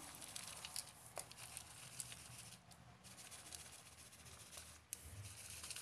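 Faint rustling and pattering of potting soil poured from a small plastic pot onto wheat seeds in a planting pot, with a few light ticks.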